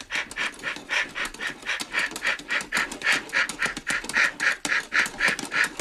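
Steam locomotive chuffing in a quick, even rhythm of puffs that grows steadily louder as the train draws into the station.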